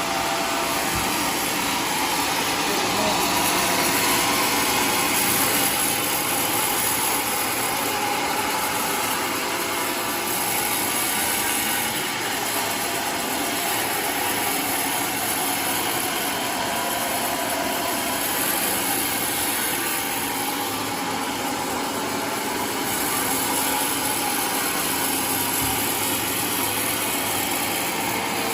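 Homemade sawmill running steadily while sawing waru wood into planks, its engine and blade making a loud, continuous machine noise with a high hiss.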